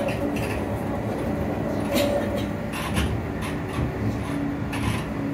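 Edinburgh tram, a CAF Urbos 3, running along its line, heard from inside the passenger saloon: a steady rumble of wheels on rail with a faint steady whine, broken by a few sharp clicks.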